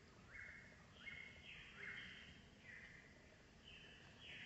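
Faint, repeated short raspy high-pitched animal calls, about two a second, over a quiet outdoor background.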